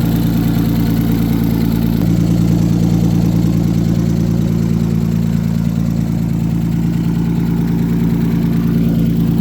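1991 Nissan 300ZX's V6 engine idling steadily, running again now that the replaced fuel pump module and relay are delivering fuel.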